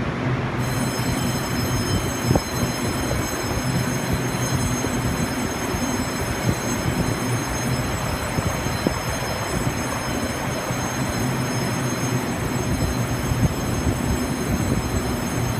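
Taiwan Railway EMU800 electric multiple unit rolling slowly beside the platform, a steady rumble with a low hum. A set of high, steady electric whines comes on about half a second in and holds, with a few light clicks from the wheels.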